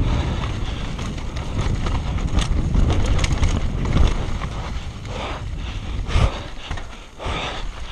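Canyon Sender downhill mountain bike ridden fast down a dirt trail: wind rumbling on the microphone, tyres on loose dirt and a steady run of knocks and rattles from the bike over the bumps.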